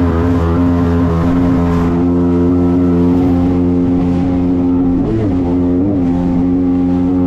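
Jet ski engine running steadily at high revs, with two brief wobbles in pitch about five and six seconds in.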